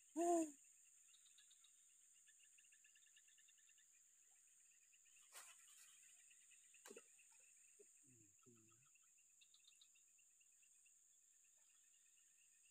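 Faint chorus of insects chirping in rapid pulses over a steady high-pitched drone, with a brief pitched sound right at the start and a couple of faint clicks in the middle.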